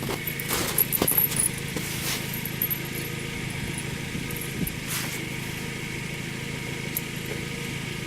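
Chevrolet Tracker idling with a steady low hum, while tire chain links clink in a few quick clicks in the first two seconds and once more about five seconds in as the back hook is fastened.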